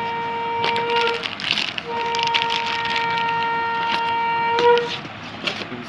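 A horn sounding a long steady note of one pitch that stops about a second in, then a second long blast at the same pitch lasting about three seconds. Plastic packaging crinkles as it is handled.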